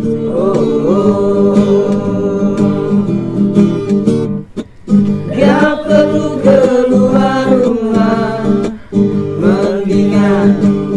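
A group of voices singing a song to strummed acoustic guitar, with a brief break about four and a half seconds in.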